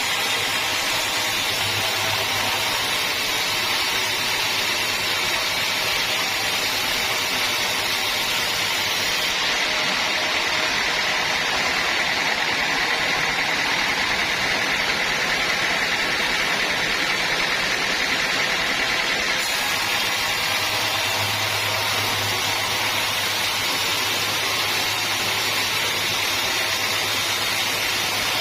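Sawmill machinery running steadily as a saw works a teak log: an even, high-pitched whine over a low hum, with no pauses.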